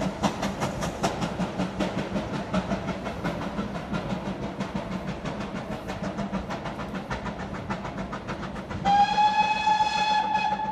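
GWR Small Prairie 2-6-2 tank locomotive No. 5541 pulling its train away, a rapid even beating that fades slowly. About nine seconds in, a steam whistle sounds once for about two seconds.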